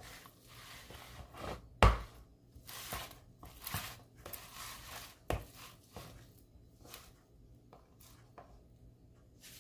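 Peeled purple yam (ubi) being mashed by hand in a bowl: irregular knocks and squashing thuds of the mashing tool against the yam and bowl, the loudest about two seconds in and again a little past five seconds, growing sparser toward the end.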